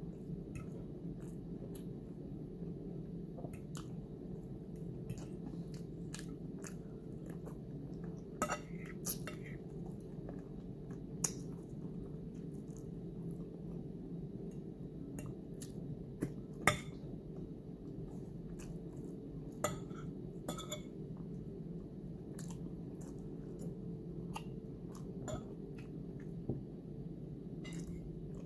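Eating sounds: a fork clinking and scraping on a plate in scattered sharp clicks, with chewing, over a steady low hum.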